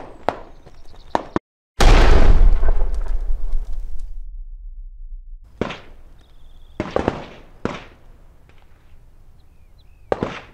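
A single loud .44 Magnum shot from a Ruger Redhawk Hunter revolver about two seconds in, followed by a long, low rumbling echo that dies away over several seconds. A few shorter, fainter sharp sounds come later.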